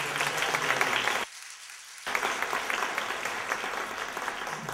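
Audience applauding, a dense patter of many hands clapping that drops away briefly about a second in, then swells again.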